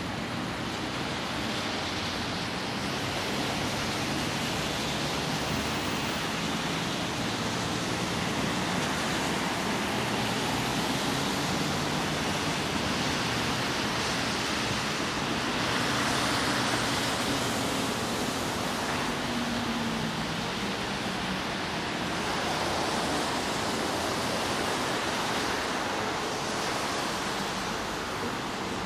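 Steady city road traffic: car tyres hissing on a wet road with engines humming underneath, swelling now and then as vehicles pass.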